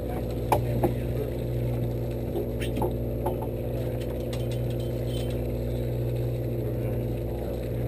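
Fishing boat's engine running steadily with an even drone, and a few short knocks and clicks on deck.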